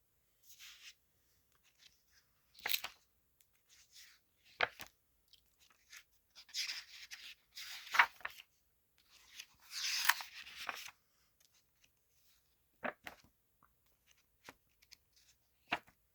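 Pages of an old paper catalogue being turned and handled: scattered sharp paper snaps and taps, with two longer rustling swishes in the middle.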